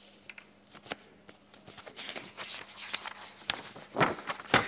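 Sheets of paper rustling as pages are handled and turned close to a microphone, with a few sharp clicks and two louder paper flaps near the end.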